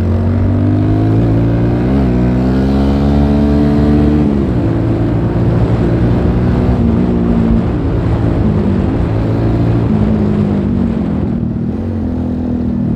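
Suzuki Gixxer motorcycle engine under way, rising in pitch as it accelerates for about four seconds, dropping sharply after that, then running at a fairly steady pace.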